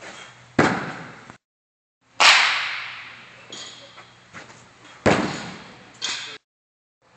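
Pitched baseballs striking the net and padded wall behind it with sharp smacks, four in all; the loudest, about two seconds in, rings out with a long echo.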